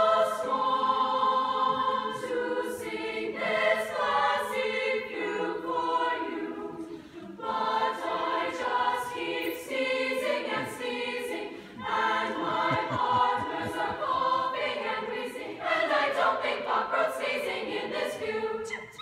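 Large female choir singing in phrases, with brief pauses for breath about seven and twelve seconds in.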